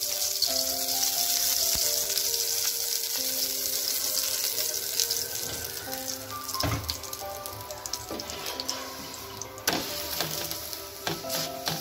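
Oil sizzling on a hot iron tawa as a methi paratha fries, loudest at first and dying down over the second half, with a few light knocks near the end as the paratha is turned with a wooden spatula. Background music plays under it.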